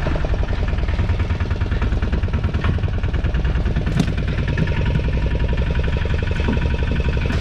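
A small fishing boat's engine running with a steady, rapid low pulse, and one sharp knock about four seconds in.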